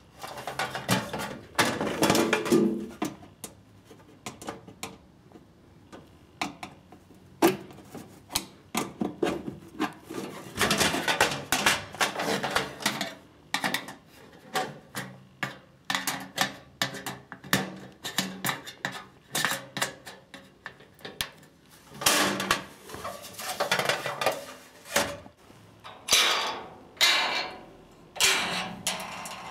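IKEA Helmer sheet-steel drawer unit being put together by hand: irregular metallic clicks, knocks and scrapes of the steel parts and of a screwdriver against the frame, with short busy clusters of clatter.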